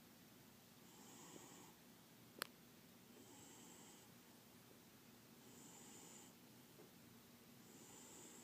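A sleeping cat snoring faintly, one soft, hissy snore about every two seconds. A single sharp click comes about two and a half seconds in.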